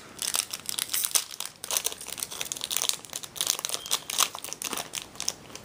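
Foil booster-pack wrapper crinkling as hands handle and crumple it, a continuous run of irregular crackles.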